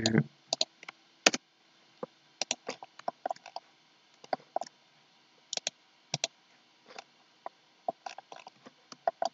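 Scattered, irregular clicks of a computer mouse, from button presses and scroll-wheel notches, some in quick pairs.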